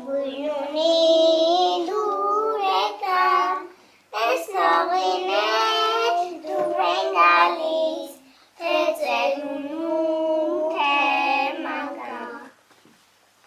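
Young children singing a song unaccompanied, in three long phrases with short breaks between them; the singing stops about twelve and a half seconds in.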